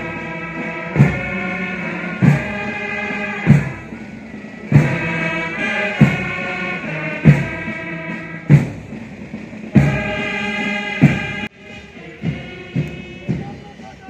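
Parade band music: sustained held melody notes over a heavy drum stroke about every second and a quarter. About three-quarters of the way through, the melody drops away, leaving lighter, quicker drum beats.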